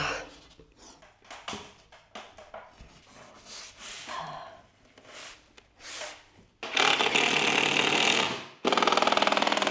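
A few light handling knocks and scrapes, then a power drill running loudly in two bursts near the end, working into a cement board panel. The second burst has a fast, even rattle.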